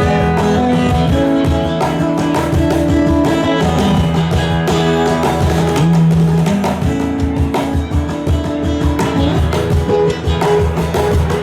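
Live band playing an instrumental passage, with strummed guitars over a steady beat.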